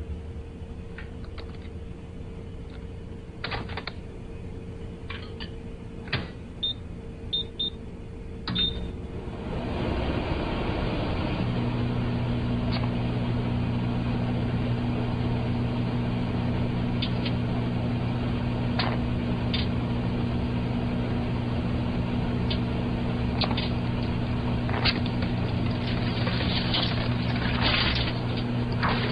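Microwave oven being set: clicks and a few short high keypad beeps. Then the oven starts and runs with a steady low hum, with sharp snaps and crackles from the cellphone heating inside, which come thicker near the end.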